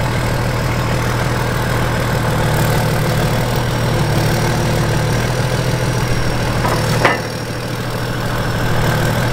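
Excavator's diesel engine running steadily. About seven seconds in there is a single sharp click or knock, after which the engine note drops a little.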